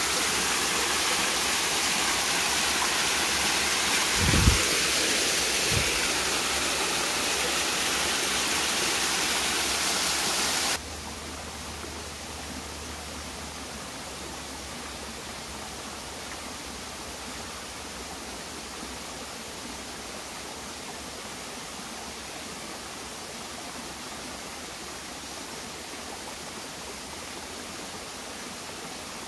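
Small waterfall splashing over rocks, a steady rushing hiss with a couple of low thumps around four to six seconds in. About eleven seconds in it cuts abruptly to a quieter, softer burble of a shallow, rocky stream.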